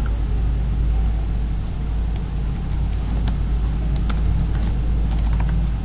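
A few scattered computer keyboard keystrokes, single clicks a second or so apart, over a steady low hum.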